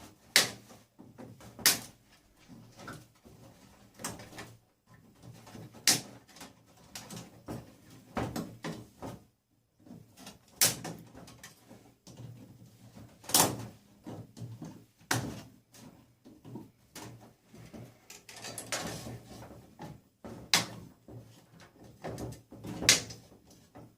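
Sharp knocks and clanks every few seconds, about eight loud ones, with quieter knocking and rustling between: parts being pulled off and dropped as a disco lighting unit is stripped for scrap metal.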